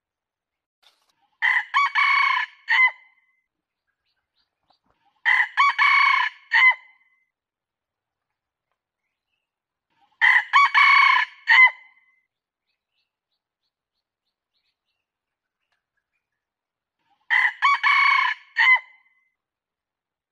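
Red junglefowl rooster (ayam hutan merah) crowing, four times at uneven intervals. Each crow is a short, broken phrase ending in a separate clipped note. It is a clean recorded lure call played back to draw in wild junglefowl.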